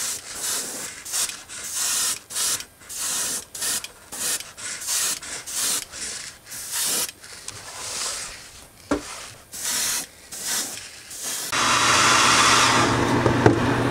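Airbrush spraying pearlescent white paint in many short hissing bursts, about one or two a second. Near the end a steady whooshing noise with a low motor hum starts up and covers them.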